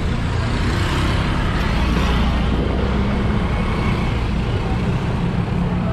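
Street traffic with motor vehicle engines running close by, a steady low hum: a car passes right beside the listener and a motorcycle sits just in front.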